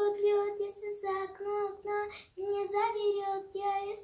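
A young girl singing without accompaniment, holding long notes, with a short break for breath a little over two seconds in.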